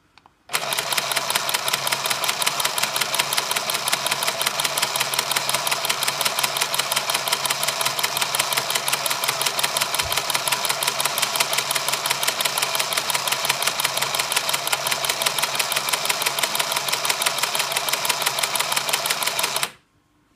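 Hello Kitty toy chainstitch sewing machine running, its small electric motor driving the needle in a fast, even clatter. It starts about half a second in and stops suddenly near the end.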